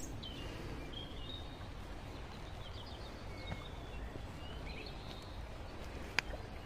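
Birds chirping and calling over a steady low rumble of outdoor background noise, with one sharp click about six seconds in.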